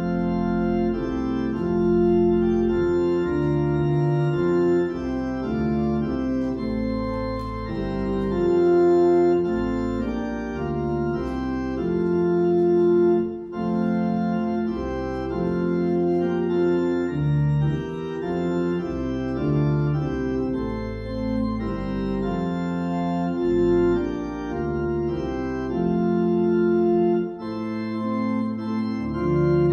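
Church organ playing the postlude in full sustained chords that change every second or two, coming in loudly at once.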